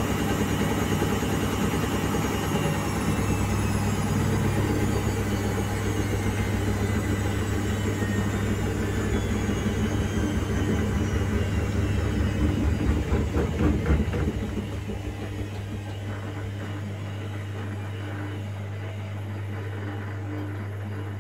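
Indesit washing machine slowing down from spin with its drum full of suds, as in a sudslock: the motor's whine falls steadily in pitch while the drum rumbles. The rumble grows louder and uneven around 13 seconds in, then drops off sharply about 14 seconds in, leaving a steady low hum.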